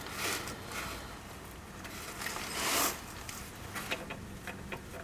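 Small handling noises from hands working at an engine's belt tensioner bracket: a brief rustle about two and a half seconds in, then several light metallic clicks, over a low steady hum.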